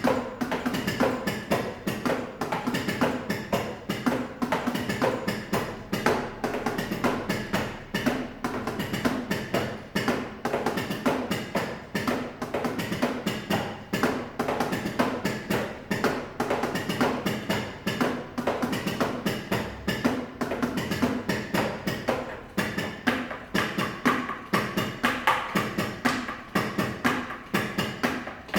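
Drumsticks playing a steady, fast drum beat on the pads of a switched-off Roland electronic drum kit: only the dull acoustic taps and thuds of sticks striking the pads, with no electronic drum sounds.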